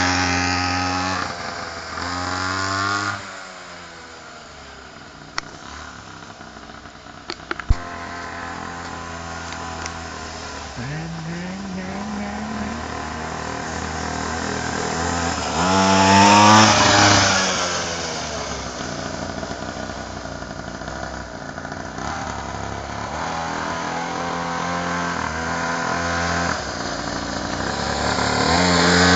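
Children's mini motorcycle's small engine running, its pitch rising and falling several times as it is revved and eased off, loudest about halfway through. A few light clicks sound in the quieter stretch before that.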